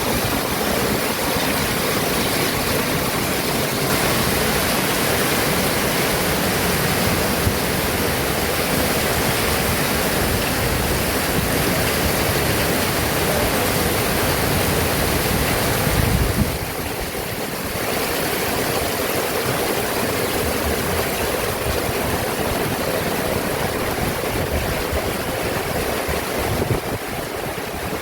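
Heavy rain pouring in a steady, dense hiss, easing briefly a little past halfway through.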